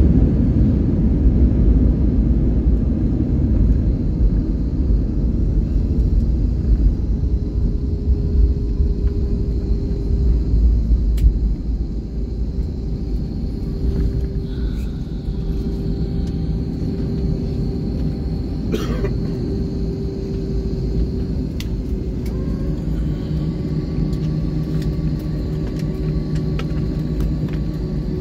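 Cabin noise of an Airbus A321 taxiing after landing: a low rumble from the wheels and engines that eases about eleven seconds in, leaving a steadier hum with a few faint clicks.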